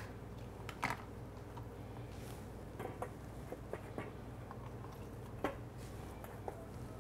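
Scattered light clicks and taps of chopped apple pieces and fingers on stainless steel pet bowls and a plastic food container, over a steady low room hum.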